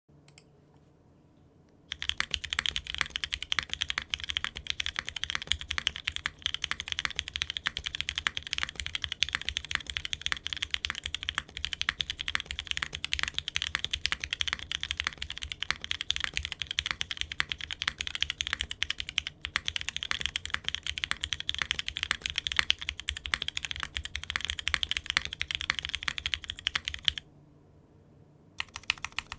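Fast, continuous typing on a mechanical keyboard fitted with Cherry-profile keycaps, a dense stream of key clacks. It starts about two seconds in, stops a couple of seconds before the end, and starts again at the very end.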